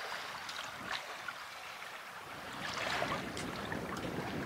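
Water rushing and splashing along the hull of a sailboat under way, growing a little louder after a couple of seconds.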